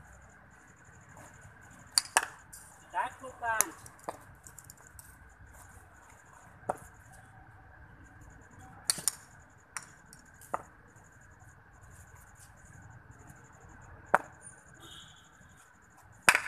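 Sharp single knocks of a ball against a cricket bat and on the concrete pitch during batting practice: a quick pair about two seconds in, then single knocks every few seconds, the last one near the end among the loudest.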